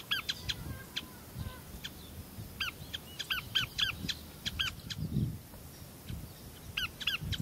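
Red-and-white spinetails calling: short rising-and-falling notes, a few per second, in three bouts, the longest in the middle. A brief low rumble comes just past the middle.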